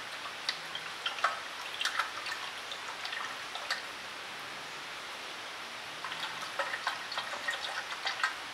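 Brake fluid glugging and splashing as it pours from a narrow-mouthed plastic bottle into a power brake bleeder's plastic reservoir. The gurgles come in two irregular spells with a quieter pause in the middle, over a steady hiss.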